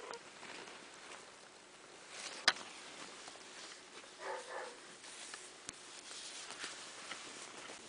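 Newborn Dogo Argentino puppies, faint, with a short squeak about four seconds in and soft rustling as they are handled on a blanket. A single sharp click about two and a half seconds in is the loudest moment.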